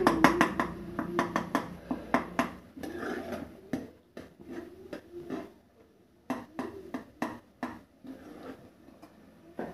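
Metal ladle clinking and scraping against the inside of an aluminium pressure cooker while stirring and mashing a thick eggplant and tomato mash: rapid clicks at first, then scattered taps.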